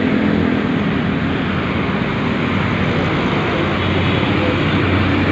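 Steady roadside traffic noise from a busy multi-lane road, with the engines of cars and trucks passing close by making a continuous rumble.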